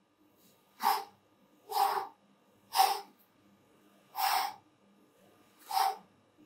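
A man breathing out hard in short, sharp bursts while doing push-ups, five of them, one every one to one and a half seconds.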